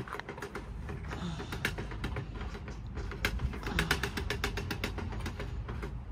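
Metal playground swing chains clicking and creaking as the swing rides back and forth, in irregular clicks that are thickest about four seconds in, over a steady low rumble.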